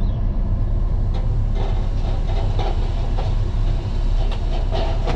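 Log loader's diesel engine running steadily, heard from inside the cab, with scattered knocks and clunks as logs are handled onto the truck.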